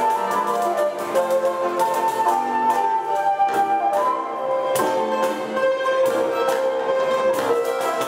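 Choro played live by a small ensemble: two flutes carry the melody over a ten-string bandolim and an acoustic guitar. A long held flute note sounds about five seconds in.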